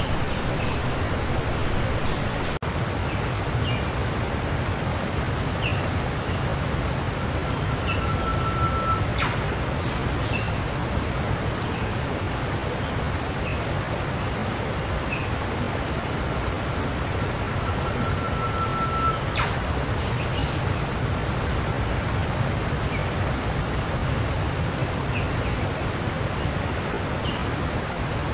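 Steady static hiss, with scattered short high chirps and two longer held tones, each ending in a sharp click, about eight and nineteen seconds in.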